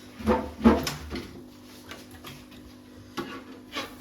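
Eating from a plate: a few short clatters and knocks of dishes or utensils, the loudest in the first second and two more a little after three seconds in, over a steady low hum.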